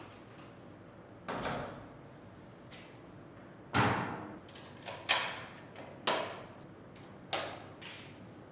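A series of five separate knocks, each sharp at the start and fading quickly, with the loudest about four seconds in.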